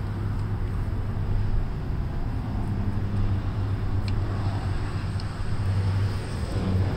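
Steady low mechanical rumble with a hum.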